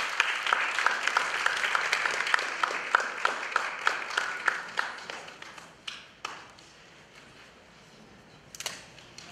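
Audience applauding, the clapping thinning out and fading to quiet about six seconds in. A few lone claps follow, and there is a brief knock near the end.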